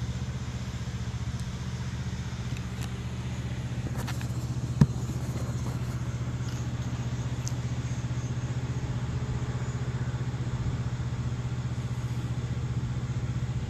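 Steady low hum of a running motor, even and pulsing, with one sharp click about five seconds in.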